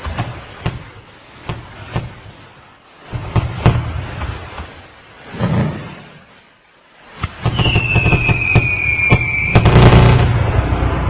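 Scattered sharp pops and bangs, then a whistle gliding down in pitch for about two seconds, cut off by a loud burst of crackling bangs.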